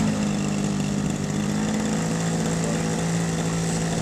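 The engine of a 106-inch Hangar 9 Piper Cub RC model airplane idling on the ground, its pitch easing a little lower about halfway through and then holding steady.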